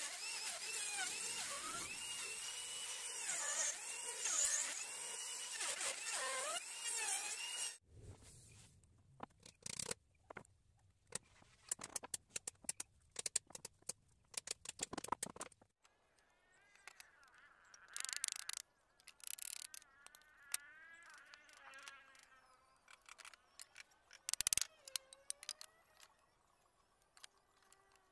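Electric trim router cutting teak for about eight seconds, its whine dipping and recovering as it bites into the wood, then stopping suddenly. After that, scattered light knocks and taps of wooden pieces, with one sharp knock about 24 seconds in.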